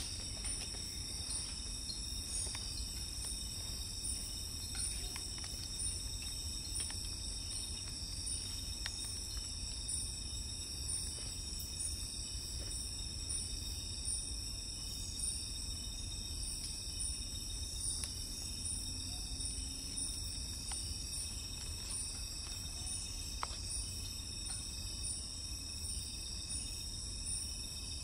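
Nocturnal insect chorus: several insects trilling steadily at high pitch, one of them pulsing evenly about twice a second, over a low steady rumble.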